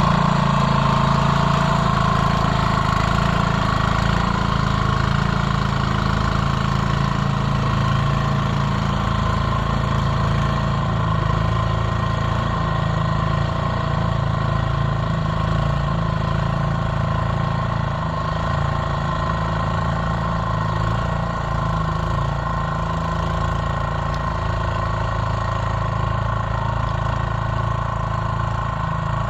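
Small single-cylinder 3.5 hp Briggs & Stratton engine of a 1979 Gilson-built Montgomery Ward walk-behind snowblower, running steadily.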